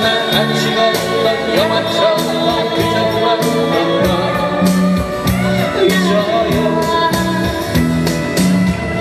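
A small acoustic band playing a song live through a PA: singing over strummed acoustic guitars, an electric guitar and a djembe hand drum keeping a steady beat.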